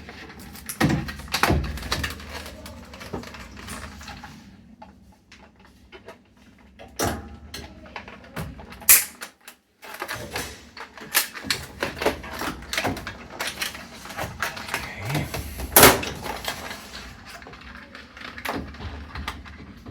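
Irregular plastic clicks and knocks from wiring plugs and zip ties being worked loose by hand inside a GE washer, with two sharp, louder clicks about nine and sixteen seconds in.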